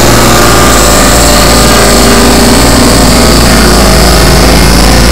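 Loud, steady experimental noise-drone music: a dense wall of held, overlapping tones and hiss over a constant low hum, with no beat.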